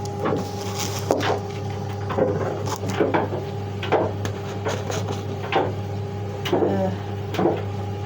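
Scattered knocks and clatters of household items being moved about while rummaging through cupboards, about a dozen short hits, over a steady low appliance hum.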